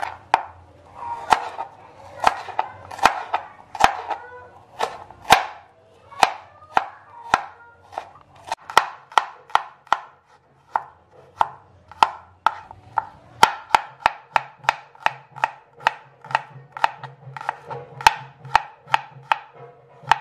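Kitchen knife slicing shallots and then garlic cloves on a plastic cutting board: a steady run of sharp knife taps against the board, about two a second.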